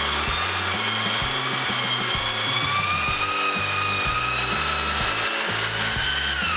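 Corded electric drill fitted with a saw-blade mixing jig, churning soaked shredded paper into pulp in a bucket of water. The motor runs with a steady whine that wavers a little in pitch as the load changes and dips near the end.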